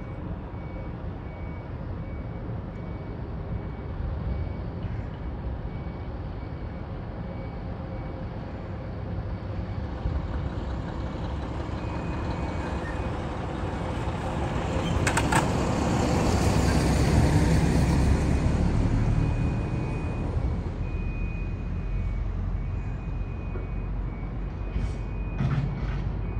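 Heavy diesel trucks running along a port road. One truck's engine grows louder as it passes close by, loudest a little past the middle, then fades while others run farther off. A short high beep repeats steadily in the background.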